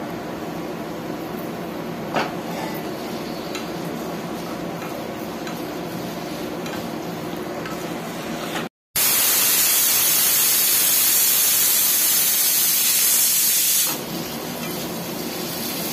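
Cubed potatoes frying in oil in an aluminium kadai, stirred with a wooden spatula. About halfway through, a pressure cooker of peas lets off steam in a loud, steady hiss for about five seconds, which cuts off sharply.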